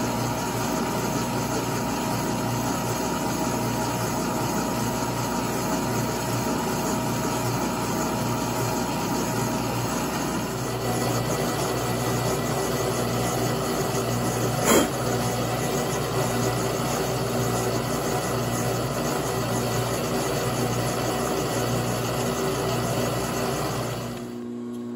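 Machine spindle running steadily with a Wohlhaupter UPA3 facing head, its tool automatically feeding out to face the top of a faceplate's boss. The hum takes on extra tones about 11 seconds in, and there is a single sharp click about 15 seconds in.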